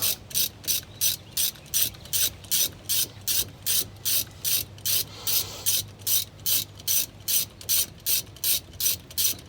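Ratchet wrench clicking in quick, steady strokes, about three a second, backing out the brake caliper bolts; it stops near the end.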